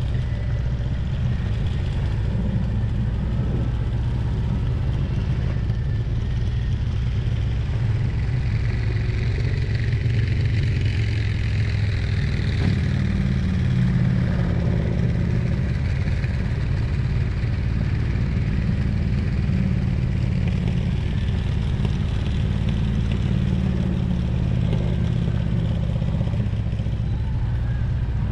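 Harley-Davidson Road Glide's V-twin engine running at steady cruising speed, heard from the bike itself, with wind and road noise over it. The engine note shifts a little up and down over the ride.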